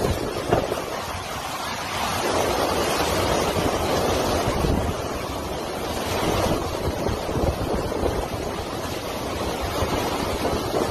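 Hurricane-force wind with driving rain, buffeting the microphone: a steady roar that swells in gusts about two seconds in and again around six to seven seconds.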